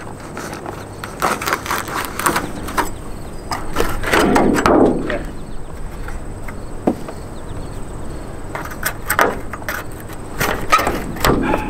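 Putty knife scraping and prying along the sealant around an RV roof skylight's frame, cutting the seal to free the old skylight: irregular scrapes and short clicks, busiest about four to five seconds in.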